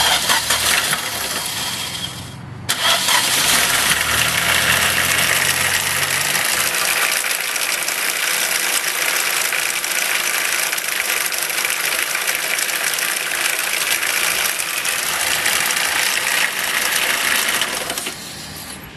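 A 1.6-litre Nissan engine starts and then runs with a loud, steady rattle. The mechanic thinks it comes from a stuck chain tensioner: it was pushed in when the engine was turned backwards during a gearbox change and has not sprung back out, so the timing chain is slack.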